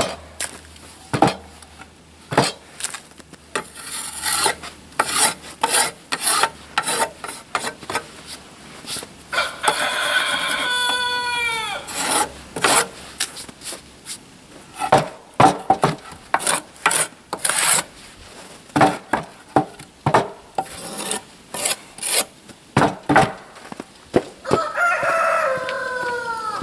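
Hand saw cutting a wooden board in quick, even strokes, about two a second. A rooster crows twice, once about ten seconds in and again near the end.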